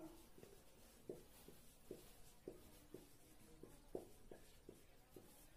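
Marker pen writing on a whiteboard: faint, irregular short squeaks and taps of the pen strokes.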